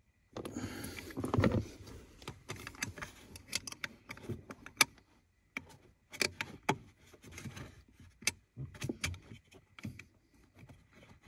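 Hands and tools working at a car's gas pedal mount under the dashboard: scattered sharp metallic clicks and clinks with rustling and scraping, loudest in the first second or two.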